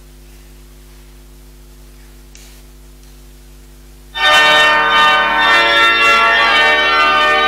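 Organ holding a soft, steady chord; about four seconds in it breaks suddenly into a loud, full passage of many notes.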